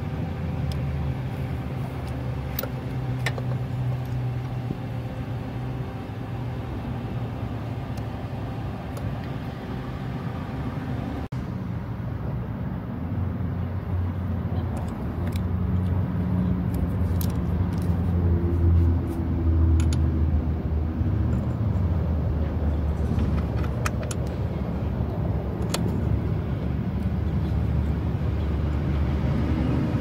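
Vehicle engine idling steadily, a low even hum, with a few light metallic clicks over it.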